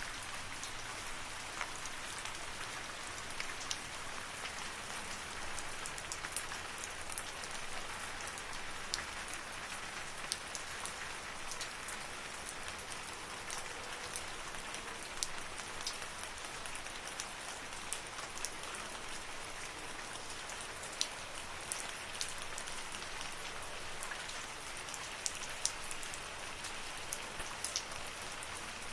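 Steady rain falling in a forest, a dense even hiss with many distinct single drops ticking on nearby surfaces scattered throughout.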